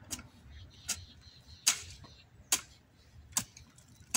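Garden hoe chopping into damp soil, a sharp strike a little more than once a second, each with a brief metallic click.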